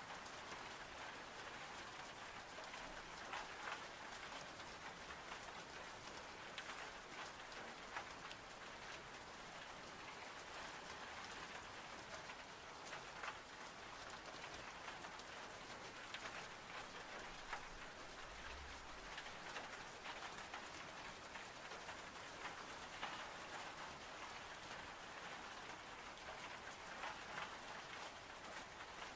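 Steady soft rain: an even patter with scattered sharper taps of single drops.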